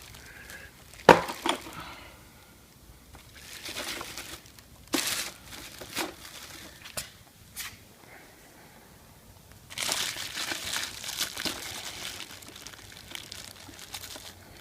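Plastic packaging crinkling and rustling while a vacuum attachment is unpacked, with scattered sharp knocks and clicks as parts are handled; the loudest knock comes about a second in, and a longer spell of rustling starts near ten seconds.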